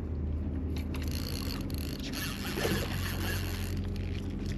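A steady low engine drone runs through. A hiss rises over it from about a second in until near the end.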